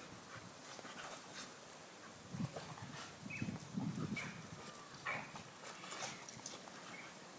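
An Alaskan malamute and an American Staffordshire terrier play-fighting: short bouts of low growling, with scuffling of paws on grass and a few brief high squeaks.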